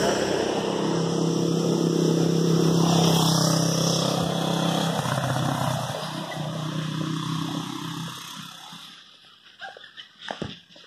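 Motorbike engine running as it passes close by, loudest around three seconds in, then fading away after about eight seconds. A few light clicks near the end.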